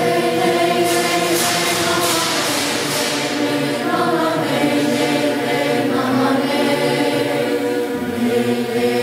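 Choir singing a slow chant in several voices, holding long notes that change only slowly.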